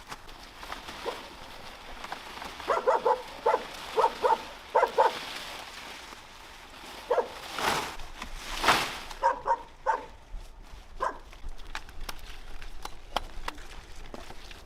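An animal calling in short, pitched yelps, in a quick run of about ten and then a few more later. Two louder knocks or rustles come in between.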